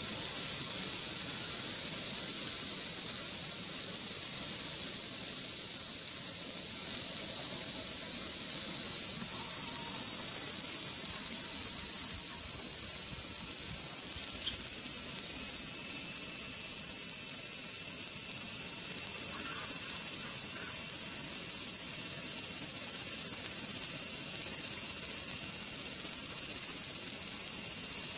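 Loud, steady, high-pitched insect chorus that goes on without a break.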